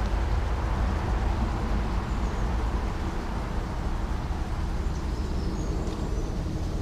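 Steady, low rumbling outdoor background noise with a hiss above it, and a few faint bird chirps.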